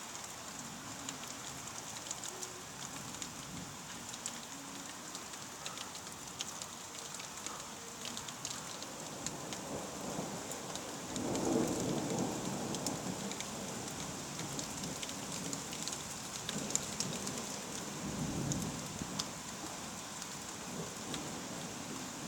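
Steady rain falling, with the pattering of individual drops. About eleven seconds in, a low rumble of thunder rises and rolls on, swelling again a few seconds before the end.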